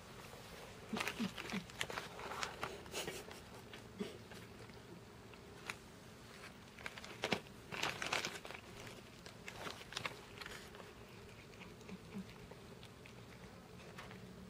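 Cats crunching freeze-dried chicken treats: irregular crisp crunches and clicks in short clusters with pauses between.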